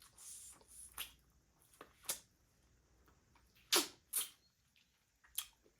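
Close-up eating mouth sounds: scattered chewing and wet lip smacks, with a few sharper smacks about two-thirds of the way through.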